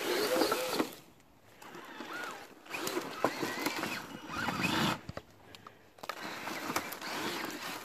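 Traxxas TRX-4 RC crawler's 4600 kV sensorless brushless motor whining in several short throttle bursts, its tyres crunching through dry leaves and snapping over sticks.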